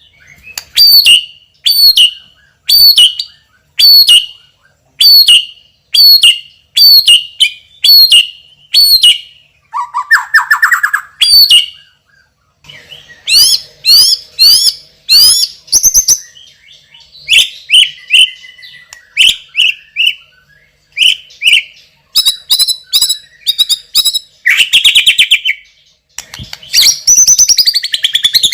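White-rumped shama singing loud: about a dozen sharp whistled phrases repeated evenly, then a varied run of fast rising whistles, rasping buzzy notes and a rapid trill near the end, packed with borrowed phrases (isian).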